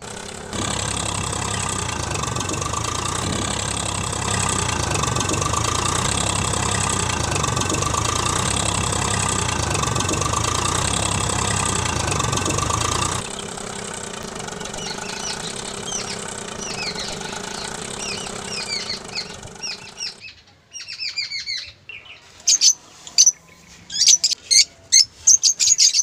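Tractor engine running steadily and loudly, then dropping to a quieter hum about halfway through while birds chirp over it. The engine stops about two-thirds of the way in, leaving runs of quick bird chirps.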